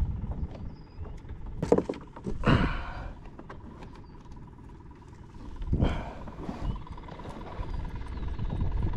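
Handling noise on a plastic fishing kayak: a few knocks and scraping bumps, the loudest about two and a half seconds and six seconds in, over a low rumble of wind on the microphone.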